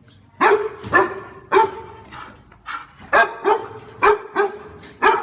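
A dog barking repeatedly: about ten short, sharp barks, roughly two a second, at an uneven pace.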